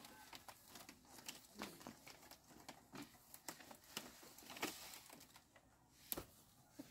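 Near silence with scattered faint clicks and light knocks, the sharpest one about six seconds in.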